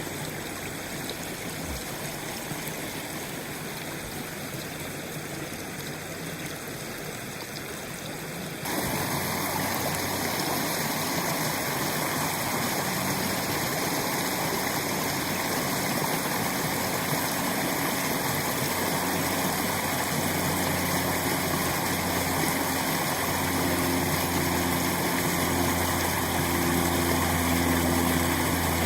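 Water running steadily, the flow through a hole punched in a beaver dam, stepping up suddenly in loudness about nine seconds in. In the second half a low engine drone comes in and grows louder toward the end.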